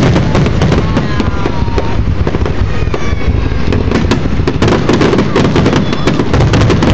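Fireworks grand finale: a dense, continuous barrage of aerial shells bursting and crackling in rapid succession, many bangs overlapping.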